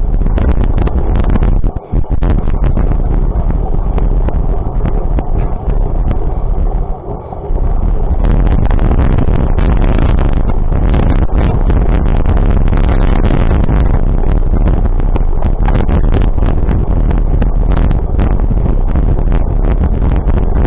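Vehicle on the move: loud, steady engine and road noise with a heavy low rumble. It drops out briefly twice in the first half.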